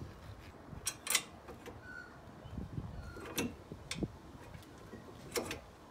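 Scattered light metallic clicks and knocks of brake caliper mounting bracket bolts and bracket being handled and fitted at the wheel hub, about five over a few seconds.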